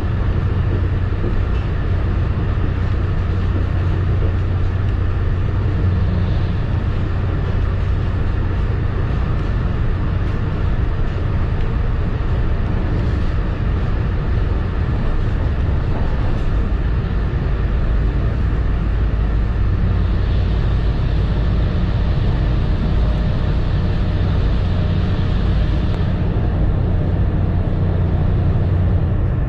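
Steady low rumble and rolling noise of a commuter rail coach running at speed, heard from inside the passenger cabin, with a stronger hiss for several seconds in the second half.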